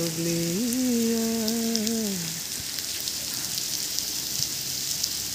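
Fountain jets spraying and the water splashing down, a steady hiss with fine pattering. For about the first two seconds a person's voice holds a few long notes over it, then stops.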